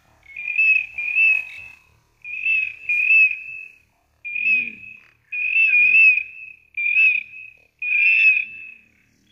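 Duck-calling whistle sounding in short, high, clear notes, mostly in pairs and repeated about once a second, to draw teal in to the decoys.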